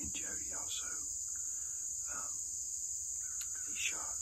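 Steady high-pitched drone of an insect chorus in woodland. Near the end there is one short, sharp click.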